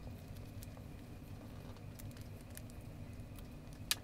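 Faint small clicks of a precision screwdriver and a camera lens's metal and plastic parts being handled, over a steady low hum; one sharper click near the end.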